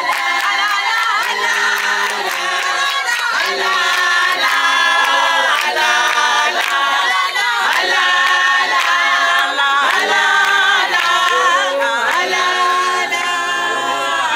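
A group of voices singing together a cappella in several-part harmony, with short sharp beats running through the song.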